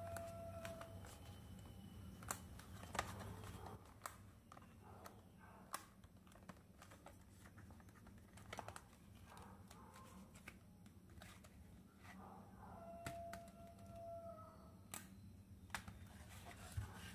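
Faint, scattered clicks and taps of small plastic toy pieces and packaging being handled, with a few brief squeaks and crinkles, over a low steady hum.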